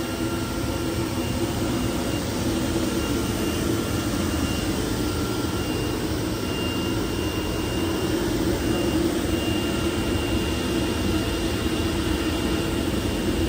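CNC digital cutting machine with a pneumatic oscillating knife running, giving a steady mechanical noise with faint high whine tones over it.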